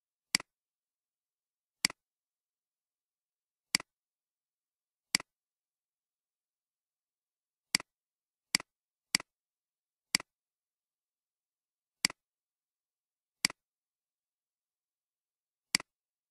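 Computer mouse clicks: eleven short, sharp clicks at irregular intervals, each followed at once by a softer second click, with dead silence between them.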